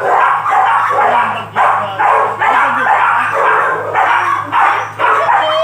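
A dog barking over and over, about two loud barks a second.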